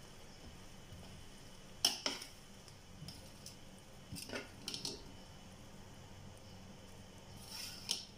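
Metal serving utensil scraping and knocking against a stainless steel pot while cooked rice is turned over and mixed. There are a few scattered clinks, about two seconds in, around four to five seconds, and again near the end, with the soft squish of the rice between them.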